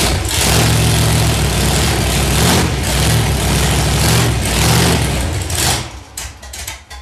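Big-block Chevy V8 in a 1933 Plymouth hot rod, running loud just after a cold start and revved in repeated blips. The sound falls away sharply about six seconds in.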